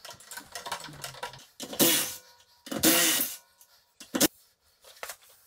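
A man coughing hard twice, about a second apart, followed by a short click.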